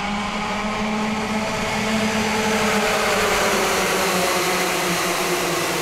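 A pack of 60cc two-stroke cadet kart engines buzzing together, many overlapping, their pitch climbing as the field accelerates away at the race start.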